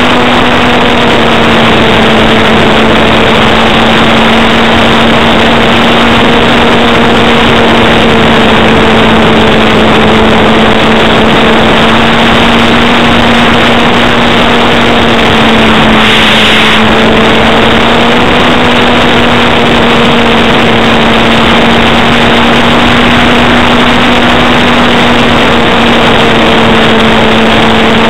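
Axi brushless electric motor spinning an APC 10x5 propeller on an RC aerobatic plane, heard from an onboard camera: a loud, steady propeller drone under heavy wind rush on the microphone. About two-thirds through there is a brief burst of extra hiss and the pitch dips slightly, then rises again.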